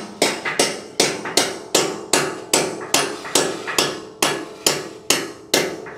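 Steady hammering, about two and a half blows a second, each blow ringing briefly: a hammer driving anchor studs into the drilled concrete floor.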